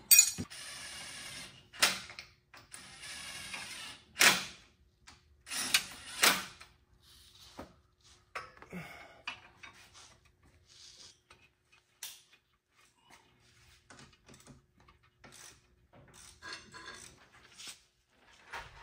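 Hand tools working on the torque converter bolts: a ratchet wrench rasping in two stretches of about a second and a half, then several sharp metal clanks, with fainter clicks and knocks after.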